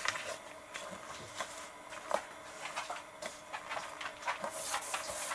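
Paper being handled on a desk: scattered small taps and clicks as a glued paper piece is positioned, then, about four and a half seconds in, a hand starts rubbing over the paper to press it down.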